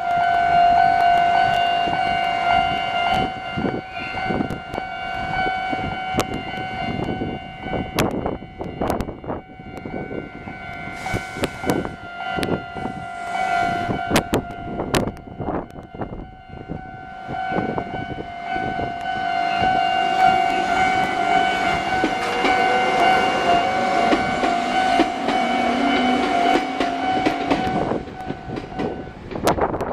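Japanese level-crossing warning bells ringing steadily, the near and far bells slightly out of step with each other. A train runs over the crossing with wheels clacking over the rail joints, and a rising whine comes in during the second half. The bells stop just before the end.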